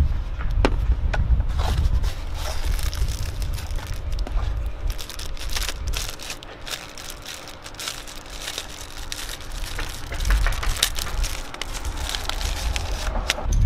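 Cardboard box of an STP cartridge oil filter being opened and the filter's plastic wrapping crinkled and pulled off: a run of irregular crackles and rustles. A low wind rumble on the microphone comes and goes underneath.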